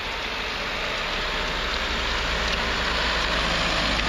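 Steady roadside noise: car traffic on the road, a continuous hiss with a low rumble that grows slightly louder.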